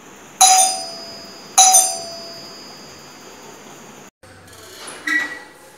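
Doorbell chiming twice, about a second apart, each chime a clear ringing tone that fades slowly.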